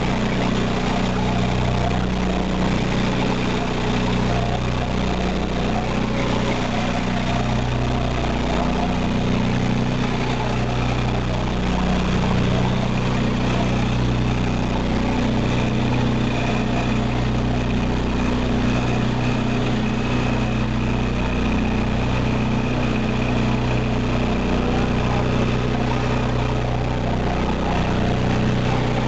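Mud recycler shale shaker running, its twin electric vibrator motors humming steadily. The hum swells and dips slowly every few seconds over a constant rushing noise.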